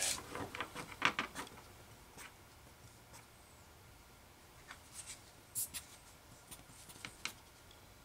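Mostly quiet room tone with a few faint, scattered clicks and taps from small parts and a screwdriver being handled on a workbench.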